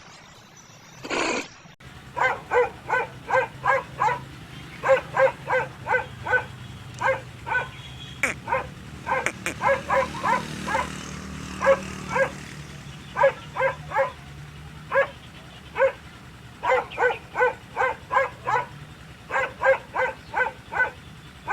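An animal giving short, pitched calls in quick runs of several, about three to four a second, over a faint low steady hum.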